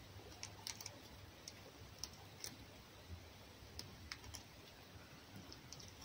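Faint, irregular light clicks and ticks, about a dozen scattered through, over a quiet low hum.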